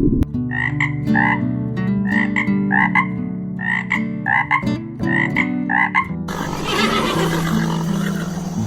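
Frog croaking: a quick series of short calls, often in pairs, about two to three a second, stopping about six seconds in. A rough, noisy sound takes over for the last couple of seconds.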